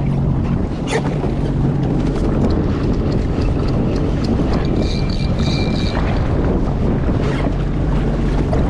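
Sea-Doo Fish Pro jet ski engine running at low speed, a steady low hum under wind buffeting the microphone and water noise. A click sounds about a second in, and a thin high tone rings for about a second around the middle.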